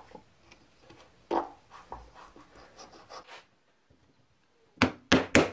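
Faint clicks and scrapes of a hand screwdriver driving a screw into wood, then a short silence. Near the end comes a quick run of about four sharp knocks, the loudest sounds here.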